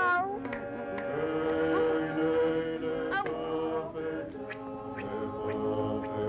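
Cartoon soundtrack music: a chorus of voices chanting long held notes over instrumental accompaniment, with a few wavering and sliding notes. Heard through an early optical film soundtrack, so it is dull, with no treble.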